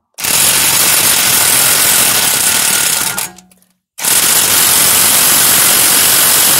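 Bauer electric impact wrench (1,050 ft-lb) hammering on the rust-seized rear axle nut of a BMW E61. There are two long, loud bursts of rapid impacts; the first winds down a little after three seconds in, and after a short pause the second starts.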